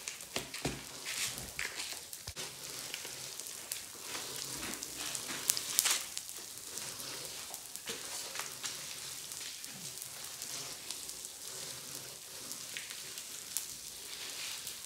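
Pop Rocks popping candy crackling as it dissolves on wet clear slime: a dense patter of tiny pops, with a few louder snaps about five and a half to six seconds in.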